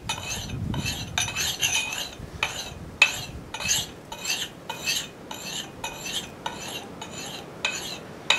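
Carborundum sharpening stone stroked rapidly across the steel bit of a Council Tool boys axe clamped in a vise. It makes short scraping strokes about twice a second, each with a high metallic ring. The stone is polishing the front edge and raising a burr on the far side.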